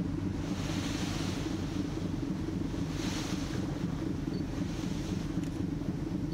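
The car ferry's engines running with a steady low drone, under the rush of the bow wake and wind over the deck, which swells twice.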